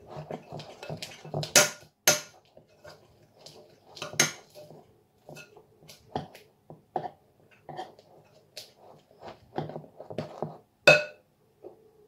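Metal spoon stirring a thick mixture in a glass measuring jug, clinking and scraping against the glass in irregular strokes, with a few sharper knocks.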